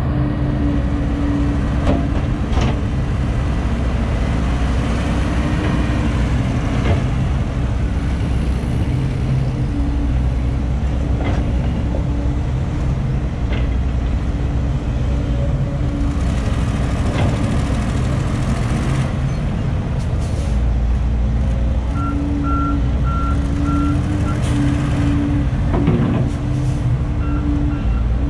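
Diesel engines of a Volvo crawler excavator and dump trucks running steadily, with scattered knocks as the bucket drops soil into a truck's steel bed. About three-quarters of the way in, a truck's reversing alarm starts beeping repeatedly.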